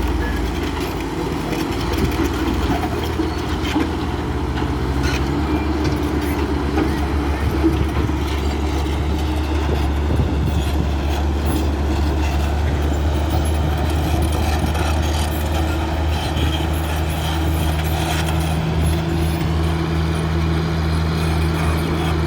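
Diesel engines of heavy construction machinery running steadily at work, a continuous low engine drone with no breaks.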